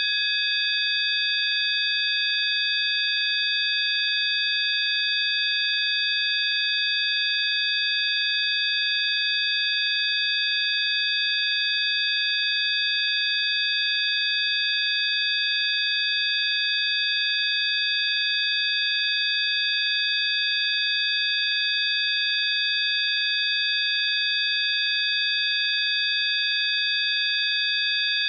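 Electronically generated pure tones: several steady high-pitched sine tones sounding together, held without any change, over a faint hiss.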